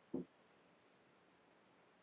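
Near silence with faint hiss: room tone. There is one short, soft thump just after the start.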